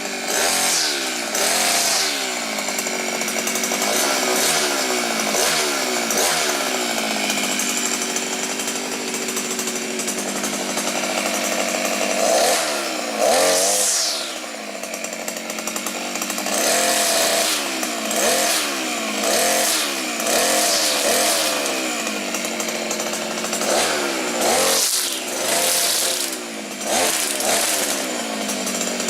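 Maxmat 43cc two-stroke brushcutter engine running, its pitch rising and falling again and again as the throttle is opened and eased off.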